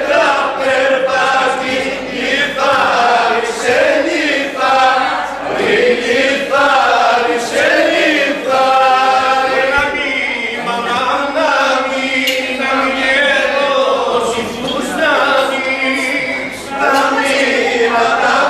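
A group of people singing a Greek folk song together, unaccompanied, in drawn-out notes that glide from pitch to pitch.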